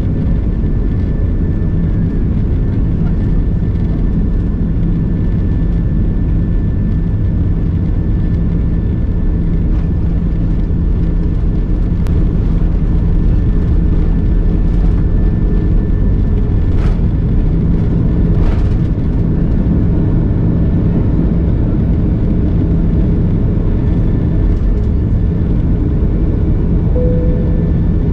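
Cabin noise of an Airbus A330-200 in flight: a loud, steady drone of engines and airflow heard from inside the passenger cabin, with a faint steady high whine. There are two faint clicks a little past halfway.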